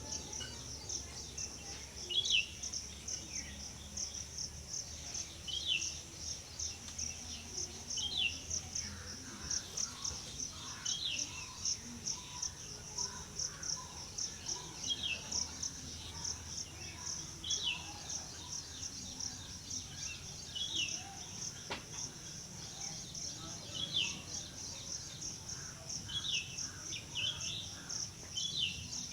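Insects trilling in a steady, fast, high-pitched pulse, with a bird giving a short falling call every two to three seconds.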